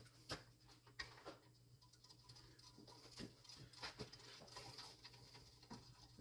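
Faint scattered light clicks and taps of small saw parts being handled and fitted, over a low steady hum.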